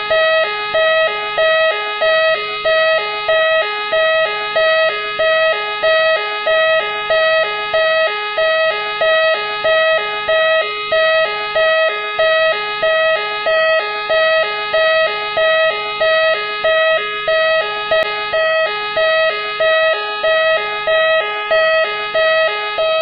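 Machine X police-car siren sounding continuously: an electronic siren repeating a lower and a higher note in an even pulse, a little over once a second, with a sweeping warble above them.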